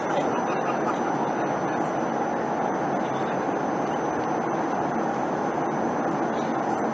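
Steady cabin roar of a Boeing 737-300 flying above the clouds, heard from a window seat over the wing: engine and airflow noise from its CFM56-3 turbofans, even and unchanging.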